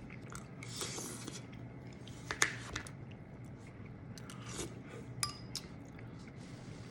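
Kitchen utensils and dishes clinking and scraping, with scattered sharp clicks; the sharpest come about two and a half seconds in and again a little after five seconds.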